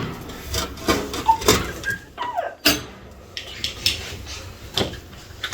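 Irregular knocks and clatter, like household utensils and dishes being handled.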